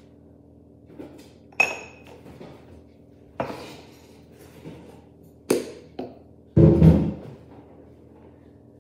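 Kitchen containers and utensils being handled and set down on a worktop during baking. There is a sharp ringing clink about one and a half seconds in, a few separate knocks, and a louder, longer clatter about two-thirds of the way through.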